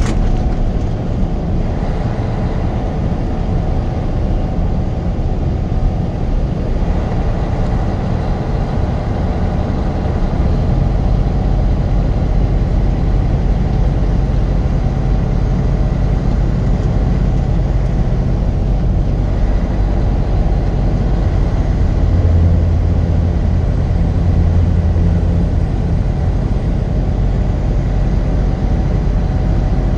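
Car driving at a steady speed: a steady low rumble of engine and road noise.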